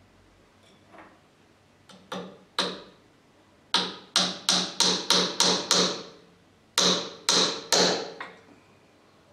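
Hammer blows on a workpiece of wood, each with a short metallic ring. There are two blows, then a quick run of seven at about three a second, then three more.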